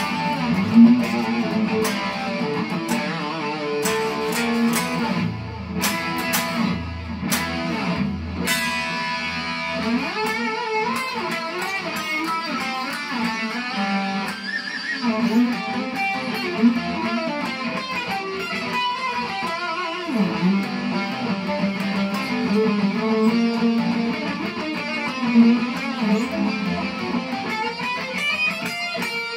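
Les Paul-style electric guitar with humbucking pickups, picked in fast lead lines high up the neck.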